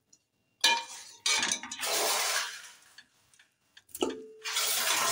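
A metal spoon clattering and scraping against a steel pot as boiled mutton pieces are dropped in onto fried onions, in two spells, with a ringing clank about four seconds in.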